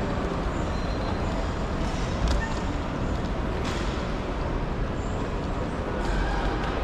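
Steady low rumble and hum of busy airport ambience, with a couple of faint knocks about two and four seconds in.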